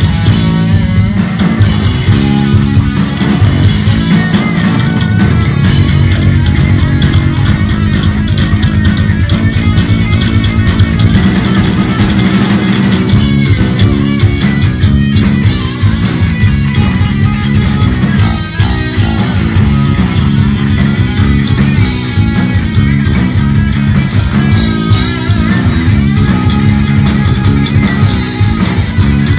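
Heavy metal band playing live and loud: distorted electric guitars over bass and a drum kit.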